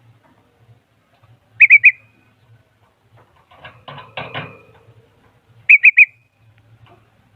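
Songbird (bulbul) calling: two loud bursts of three quick whistled notes about four seconds apart, with softer scratchy chatter between them.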